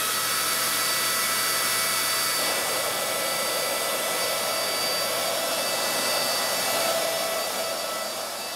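Electric air pump supplied with a HappyBuy gymnastics air track running steadily, blowing air through its hose into the track. It makes a steady whine over a rush of air.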